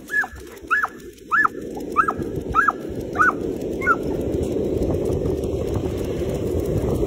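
Dog giving a string of short high-pitched whines, about one every 0.6 s, excited and eager to run, fading out after about four seconds. A rushing noise of wind on the microphone builds underneath as the run gets going.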